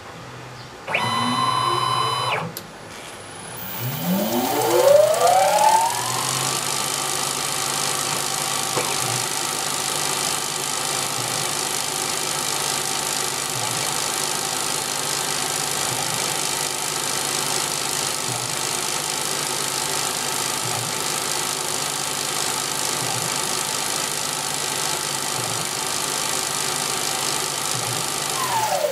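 CNC mini lathe's spindle motor spinning up with a rising whine over about three seconds, then running steadily with a high hiss, and beginning to wind down right at the end. Just before the spin-up comes a brief, separate motor whir.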